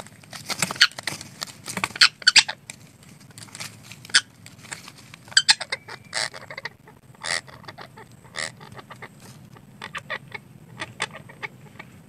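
Red-breasted parakeets giving short, harsh squawks at irregular intervals, some in quick clusters.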